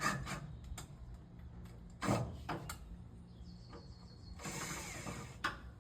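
Tools being handled while setting up to drill the floor: scattered clicks and knocks, a brief high whine about three and a half seconds in, and a short hissing burst of about a second near the end.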